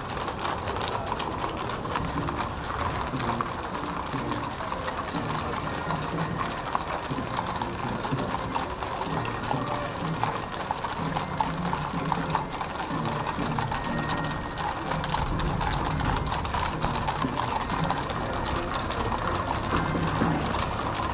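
Hooves of a column of cavalry horses walking on an asphalt road, a dense, continuous clip-clop of many horses at once.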